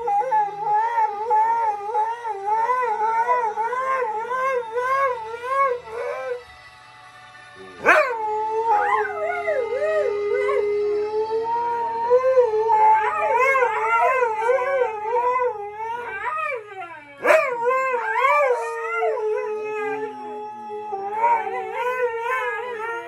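Siberian huskies howling: long sustained howls whose pitch wobbles rapidly up and down. They break off for about a second and a half, about six and a half seconds in, then start again with a sharp rise.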